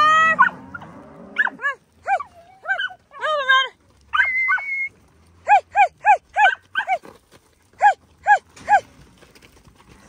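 A calf's falling bawl trails off at the start. Then a dog barks and yips in short, high, arched calls, with a quick run of about three a second in the middle and three more near the end.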